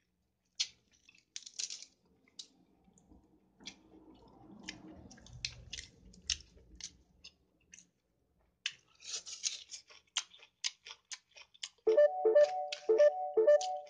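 Close-up eating sounds: chewing with wet lip-smacking clicks at an irregular pace. About two seconds before the end, background music with a steady beat comes in.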